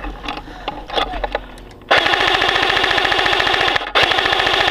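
Airsoft gun firing full-auto: two long, rapid, loud bursts, the first starting about two seconds in and the second right after a short pause. Fainter scattered shots come before them.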